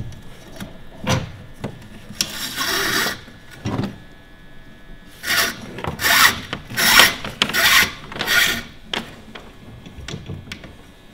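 Rope rubbing through hands and fittings as the outhaul control line is pulled: one long stroke about two seconds in, then five short quick strokes, with a few small knocks from the hardware.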